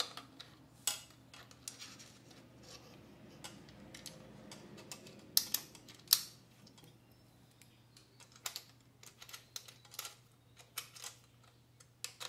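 Small metallic clicks and taps of a metal radiator-guard bracket being fitted to a dirt bike's frame and a hex key working its mounting bolt, with a few sharper clicks about five and six seconds in and a run of quick small ticks near the end, over a faint steady low hum.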